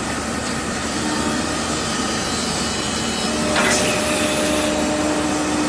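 Steady machinery noise from a glass-processing line, with a low hum that grows slightly louder a little past halfway and a short hiss near the middle.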